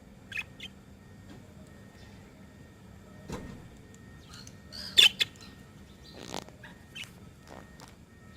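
Budgerigars giving short, scattered chirps and squawks, the loudest a pair of sharp calls about five seconds in.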